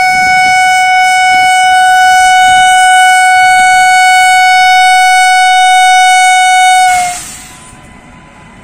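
Air horn of a WAG-9 electric freight locomotive sounding one long, loud, steady blast as the train approaches slowly. The blast cuts off about seven seconds in, dropping slightly in pitch as it stops.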